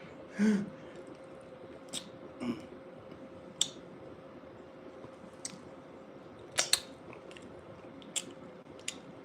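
Close-miked mouth sounds of someone chewing a bean burrito: scattered short, wet smacks and clicks, the loudest a quick pair about six and a half seconds in.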